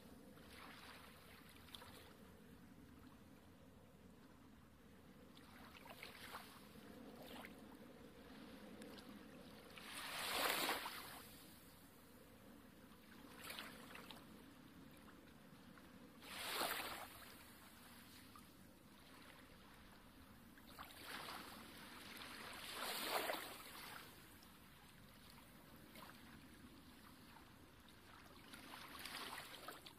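Faint water sound: a low, steady wash with a soft swell that rises and fades over about a second, four times at intervals of several seconds.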